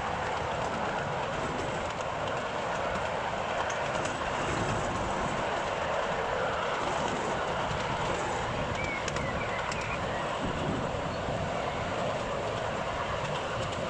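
Miniature ride-on train rolling along its track with a long string of carriages: a steady, even rumble of small wheels on rail, heard from aboard the train.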